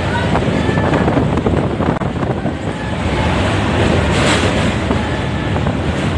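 Passenger train running, heard from a window or door: a steady rush of wind buffeting the microphone over the low rumble of the wheels on the track, with a brief louder hiss about four seconds in.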